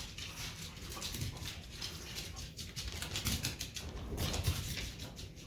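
Corgis' paws and claws pattering and scuffling irregularly as the dogs move about searching.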